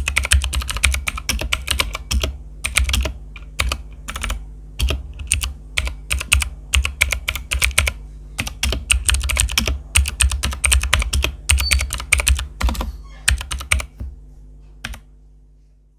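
Typing on a T-Dagger TGK317 mechanical keyboard: rapid clacking keystrokes in bursts with short pauses, over a steady low hum. The keystrokes thin out after about thirteen seconds and the sound fades out near the end.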